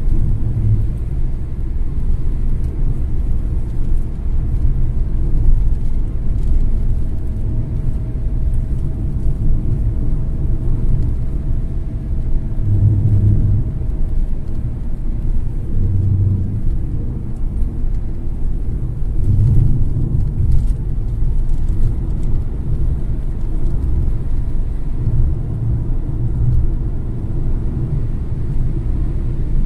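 Steady low road and engine rumble of a car driving along a highway, heard from inside the cabin. A faint steady whine rises out of it for several seconds in the first half.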